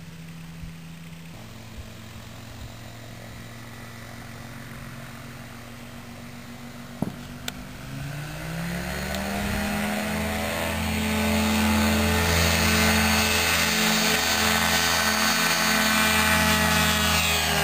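Motorized hang glider (microlight trike) engine and propeller idling, then opened up about eight seconds in. The pitch rises over two or three seconds to full takeoff power and holds steady and loud through the takeoff run. A couple of sharp clicks come just before the run-up.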